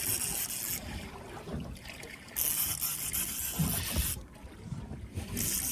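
Water sloshing around a small fishing boat over a steady low rumble, with three spells of loud hiss: at the start, from about two and a half to four seconds in, and again near the end.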